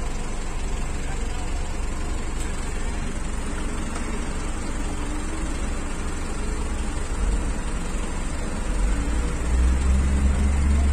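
Truck engine running with a steady low rumble, growing louder about nine seconds in.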